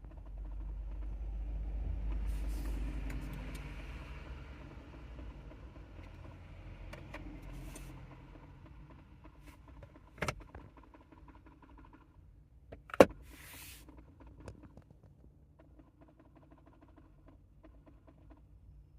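Toyota Corolla's 1.6 3ZZ-FE four-cylinder engine running, heard from inside the cabin: a low hum that swells over the first two seconds and then slowly fades back to a steady drone. There are a few sharp knocks, two of them loud, about ten and thirteen seconds in.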